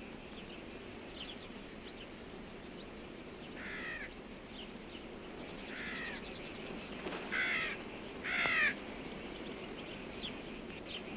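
Crows cawing, four separate caws a second or two apart over a quiet outdoor hush.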